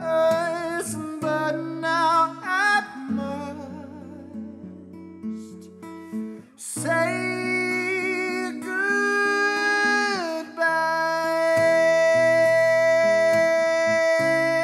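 Acoustic guitar played with a man singing long held notes; one note glides down about ten seconds in, and another is held steady to the end.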